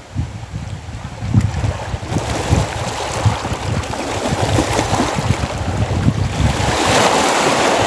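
Small sea waves washing in the shallows, swelling to a louder wash about seven seconds in, with wind buffeting the microphone.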